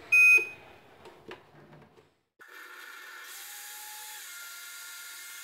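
A short, loud, high beep, then after a brief pause the countertop blender's motor starts and runs steadily, blending mango and orange juice.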